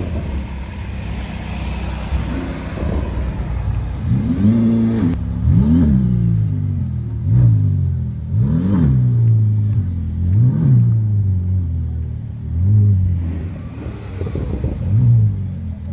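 A supercar's engine idling and being blipped, the revs jumping up and dropping back about seven times, every second and a half to two seconds.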